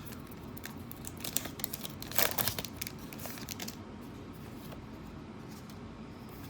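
Foil Pokémon booster pack wrapper crinkling and tearing open in the hands, a dense crackle that is loudest about two seconds in and dies down after about four seconds.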